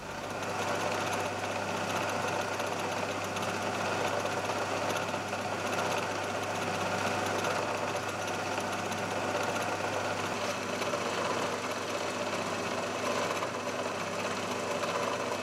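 Milling machine running steadily with an end mill turning in its spindle: an even, constant mechanical whirr with no breaks or changes in speed.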